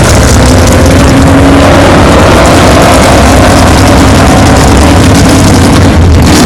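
Vehicle engine running hard under acceleration, its pitch rising slowly, very loud and distorted under a dense rush of noise.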